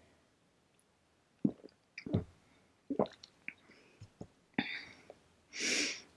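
Quiet mouth sounds of someone tasting a soda: a series of short lip smacks and tongue clicks, then a short breath near the end.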